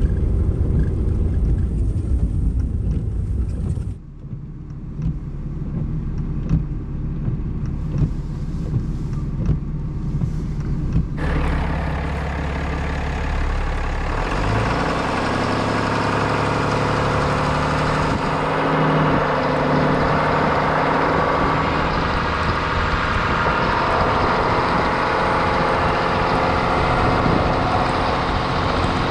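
A truck driving up a snow-covered gravel road: a low engine drone from inside the cab, then after a cut, loud engine, tyre and wind noise on an outside camera.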